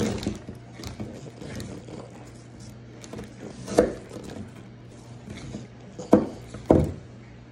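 Knife cutting an apple into pieces: three sharp cracks, one about four seconds in and two close together near the end, over a steady low hum.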